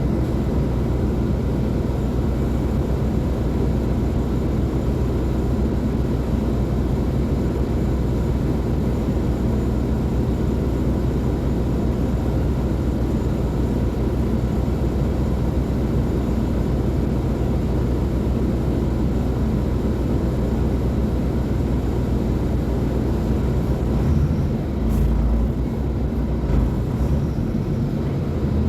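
Mercedes-Benz O500U bus diesel engine running with a steady drone. Near the end the low rumble changes and a few sharp knocks come in.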